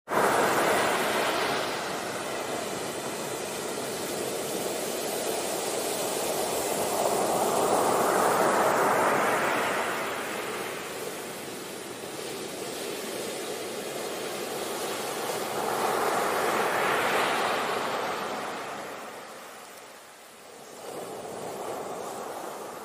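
Ocean waves: a rushing surf noise that swells and ebbs in slow surges about every eight seconds, brightening as each wave peaks.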